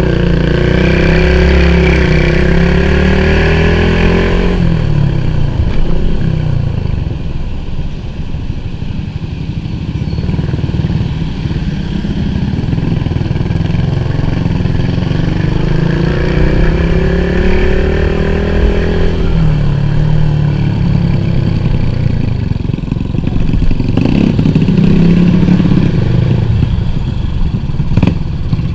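Yamaha Tricity scooter engine under way, its pitch climbing as it accelerates and falling away as the throttle closes, three times over.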